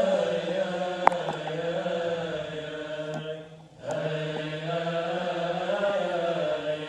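Coptic liturgical chant: voices singing a hymn in long held notes that slowly rise and fall, with a short break for breath a little past halfway. A sharp click sounds about a second in.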